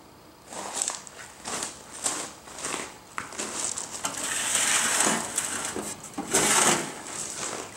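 Irregular scraping and rustling handling noises, a run of short scrapes that grows busier and louder about halfway through, with one louder scrape near the end.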